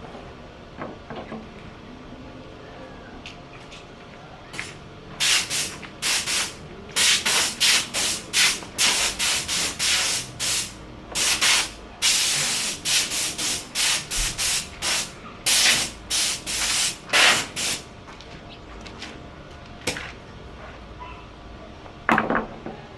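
Hand sanding on a wooden door: a long run of quick, irregular scraping strokes, one of them longer, then a couple of single strokes near the end.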